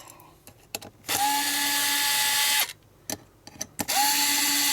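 Small electric screwdriver running in two bursts of about a second and a half each, undoing the small screws on a hard drive's internal parts. Each burst whines up quickly as the motor spins up, then holds a steady pitch. A few light clicks of small parts come between the bursts.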